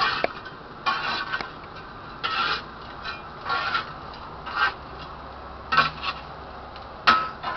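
Coal forge being given more air blast: short raspy rushing bursts, roughly one a second, as the fire flares up.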